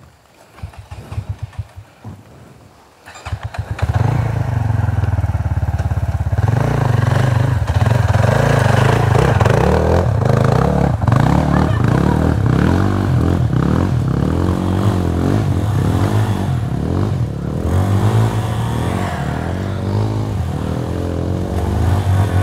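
250 cc adventure motorcycle engine: a few short sputters, then about three seconds in it catches and runs loudly, revved up and down again and again on a slippery climb.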